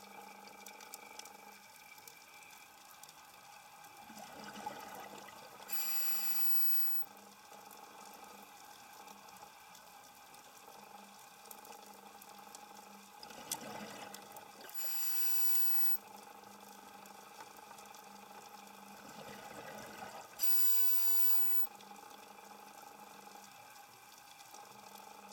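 Scuba diver breathing through a regulator underwater: three breaths about seven seconds apart, each a couple of seconds of rushing, bubbling noise, over a faint steady hum.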